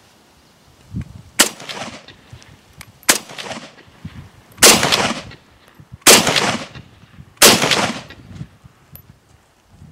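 Five semi-automatic rifle shots from an SKS carbine firing 7.62×39mm, spaced about a second and a half apart. Each crack is followed by a short echo.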